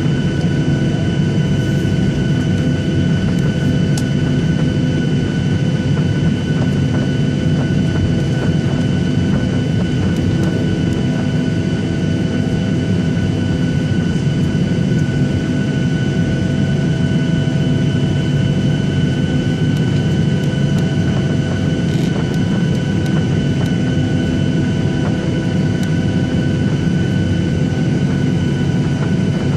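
Boeing 737 jet engines running steadily at high thrust during takeoff, heard from inside the passenger cabin: a dense low rumble with several steady whining tones above it.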